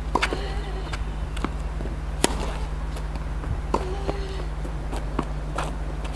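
Tennis rally: racket strikes and ball bounces sound as sharp pops about every second or so, the loudest a little over two seconds in, over a steady low hum.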